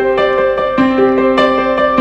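Piano music: a slow melody of single struck notes ringing on over held lower notes.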